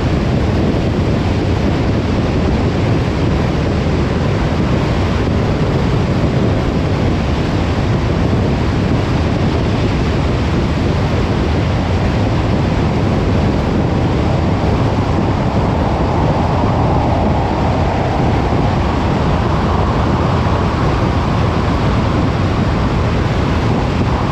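A car driving steadily on the road, giving a loud, even rush of tyre, engine and wind noise, heaviest in the low range. A faint higher hum swells for a few seconds about two-thirds of the way through.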